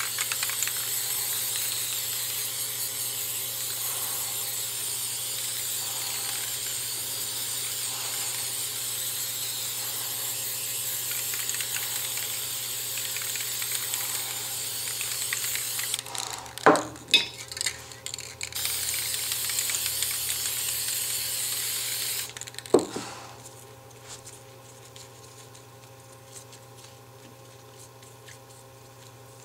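Aerosol spray paint can spraying in a long, steady hiss. It stops a little past halfway with a few sharp knocks, sprays again for about four seconds, and is followed by one more knock. After that there is only low background noise.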